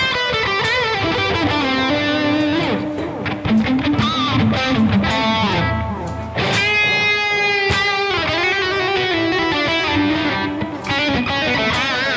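Electric guitar playing lead solo lines through a Vox ToneLab EX modeling processor on its solo preset: sustained single notes with wide vibrato and string bends.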